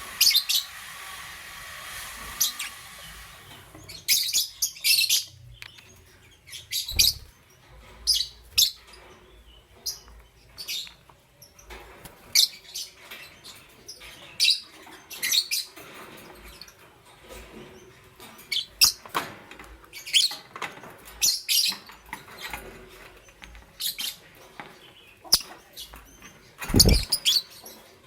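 Pet lovebirds chirping in short, sharp, high calls, scattered irregularly a few times a second. A steady hiss lies under the first few seconds, and a louder knock comes near the end.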